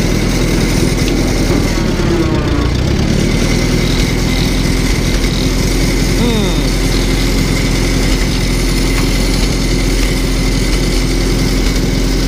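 Allis-Chalmers WD-45 tractor engine running steadily as the tractor drives along.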